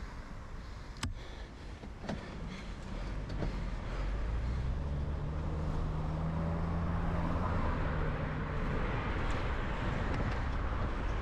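Road traffic heard from a moving bicycle: a car's engine hums steadily as it approaches and passes close by, from about three seconds in until about eight and a half, over a constant road and wind rumble. Two sharp knocks about a second apart come near the start.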